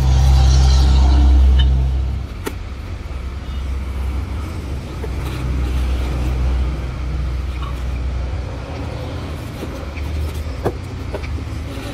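A nearby engine running with a steady low rumble, louder for the first two seconds and then a little quieter, with a few light clicks.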